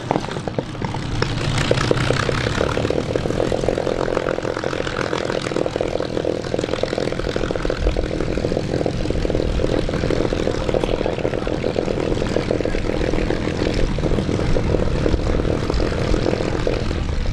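Supermarine Spitfire's Rolls-Royce Griffon V12 engine running at a steady idle, with the propeller droning, as the aircraft taxis into its parking spot.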